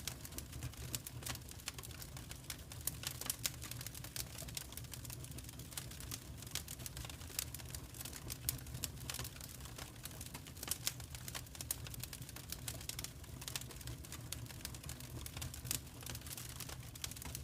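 Fireplace fire crackling: a dense run of irregular small pops and snaps over a low steady rumble.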